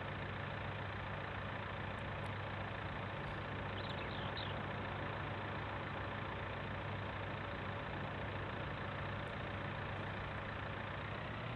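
Farm tractor engine running steadily, with a thin steady whine over the drone.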